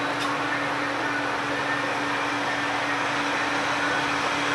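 Hot-air rework station blowing steadily, a constant whooshing hiss with a low hum underneath, as a chip on a phone board is heated for replacement.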